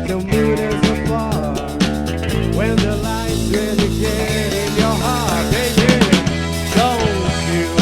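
Live rock band playing: drum kit, bass and electric guitar, with a melody line that bends up and down in pitch over the beat.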